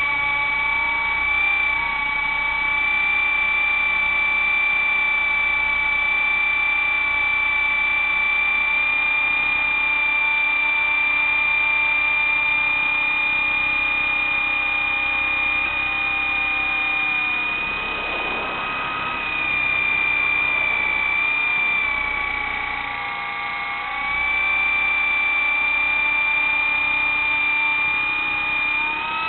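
Radio-controlled model helicopter running, with a steady high-pitched whine from the motor and rotors. The whine eases and dips in pitch briefly about two-thirds of the way through, then picks back up.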